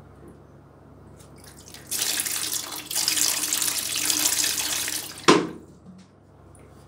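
Water poured from a plastic bottle over rusty steel pliers and splashing into a bucket of water, rinsing them after a soak in a black treatment liquid. The pouring starts about two seconds in, lasts about three seconds, and ends with one sharp, louder sound.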